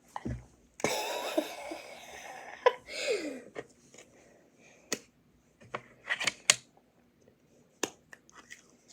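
Handling of small craft-kit pieces and their packaging at a desk: a rustle about a second in, then scattered sharp clicks and taps.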